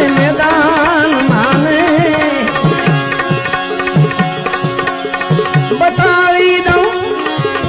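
Instrumental interlude of a devotional bhajan: tabla keeping a steady rhythm, its bass drum strokes bending in pitch, under held drone notes and a wavering melody line.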